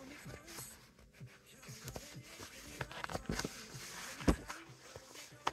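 Handling noise from a compression sock being stretched and pulled down over a flat insert: fabric rustling and small knocks, with one sharp louder knock about four seconds in.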